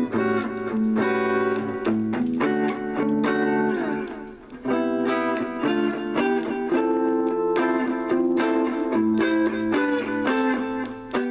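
Electric guitar on a clean tone, plucking single-note lines and chords; the playing thins out briefly around the middle, then picks up again.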